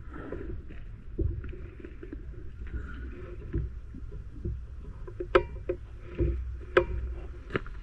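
Low wind and handling rumble, then a sharp crack about five seconds in: the QS Air Arms Mk3 BT PCP air rifle firing a slug. Two more sharp clicks follow in the last two seconds.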